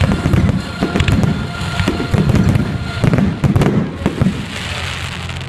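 Fireworks finale: aerial shells bursting in rapid, overlapping succession, deep booms mixed with sharp cracks. The bangs thin out about four seconds in.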